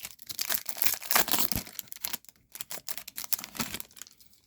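The crinkly wrapper of a 2021 Topps Series 1 baseball card pack being torn open and crumpled. There is dense crackling for about two seconds, then it thins to scattered rustles.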